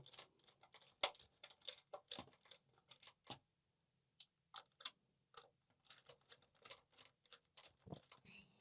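Faint, irregular small clicks and ticks of screws being turned in with a screwdriver, snugging them down, with a pause of about a second midway.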